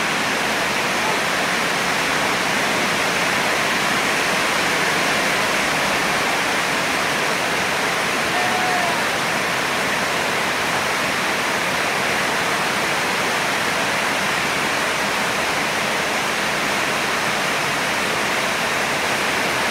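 Rain falling steadily, an even, continuous hiss that neither builds nor fades.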